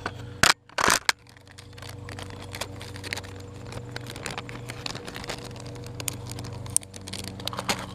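Handling of plastic lure packaging: two loud crinkling bursts about half a second and one second in, then scattered small clicks and rustles over a steady low hum.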